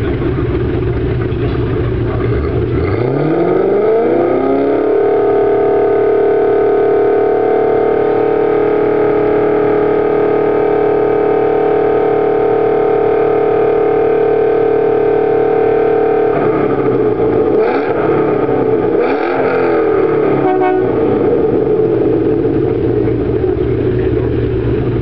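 MG ZT engine and loud modified exhaust revved from idle, climbing over about two seconds starting some 3 s in. It is held at steady high revs for about twelve seconds for a sound-level reading, which measured 110.7 dB. It then drops back with a few quick blips and settles to idle.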